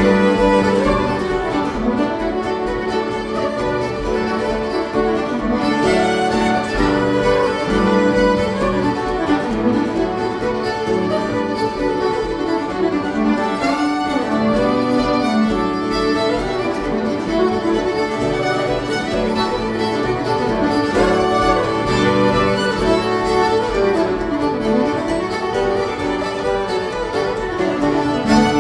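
Two fiddles playing a lively reel in unison, with an acoustic guitar accompanying underneath.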